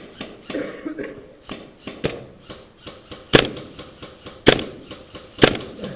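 Gas blowback airsoft rifle (WE HK416 open bolt) fired in single shots about a second apart, sharp cracks that grow loudest from about three seconds in, with smaller clicks between them.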